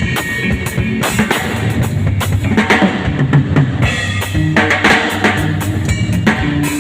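Drum kit played in a busy groove, with bass drum, snare and cymbal strikes in quick succession over a backing track with a bass line.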